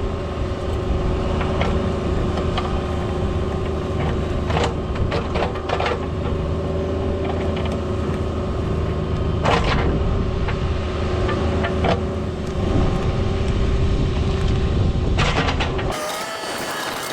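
Cat 304 mini excavator's diesel engine running steadily while digging, with scattered sharp metallic clanks and knocks from the bucket and arm. Near the end the engine drone cuts off abruptly, leaving a thinner hiss.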